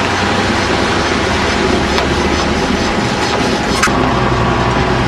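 Engine of a potato-hauling truck running steadily under a loud rumble and rattle, with one sharp click or clank a little under four seconds in.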